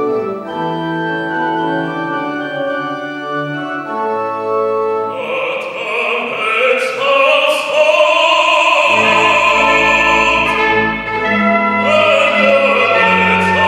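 Organ accompaniment playing sustained chords, joined about five seconds in by an operatic bass voice singing with vibrato over it.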